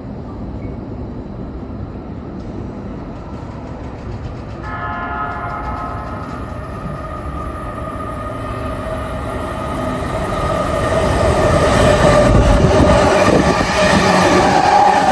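JR East E257-5000 series electric multiple unit passing through a station without stopping, its rumble growing steadily louder as it approaches and goes by. A steady chord-like tone comes in about five seconds in and grows with the train.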